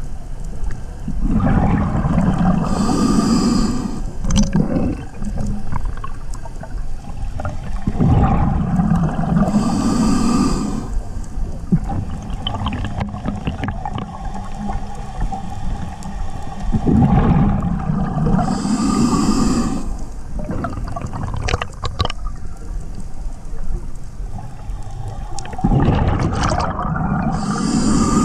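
Scuba diver breathing through a regulator underwater: four breath cycles about eight seconds apart, each a rumbling surge of exhaled bubbles with a short hiss from the regulator, over constant water noise.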